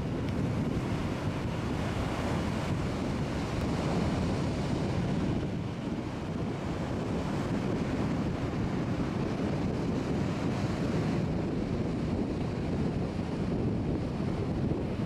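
Ocean surf breaking on the beach, a steady rushing noise, with wind buffeting the microphone.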